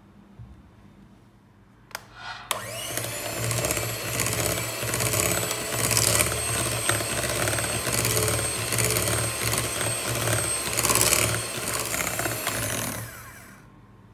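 Electric hand mixer clicked on about two seconds in, its motor whirring with a steady high whine as the beaters whisk egg yolks in a glass bowl, then switched off near the end.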